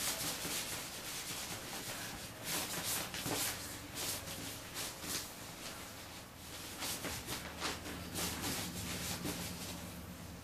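Orange tabby cat pawing at and brushing against a clear plastic shower curtain inside a shower stall: repeated short rubbing and scuffing strokes of plastic.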